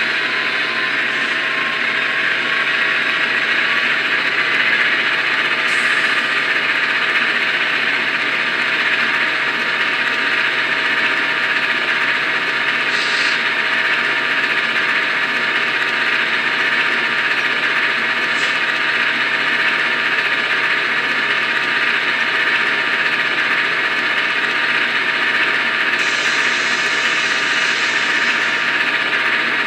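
Miniature diesel locomotive sound from the sound decoder of an N-scale VIA Rail F40PH-2D model, played through its tiny speaker: a steady, tinny engine idle with no deep bass and a few fixed whining tones. Short hisses break in now and then, with a longer one near the end.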